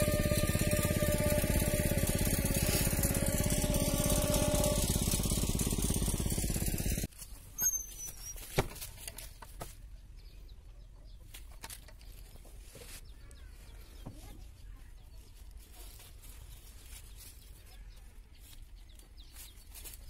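A small engine running steadily and loudly, stopping abruptly about seven seconds in. After that it is quiet, with a few faint knocks and rustles.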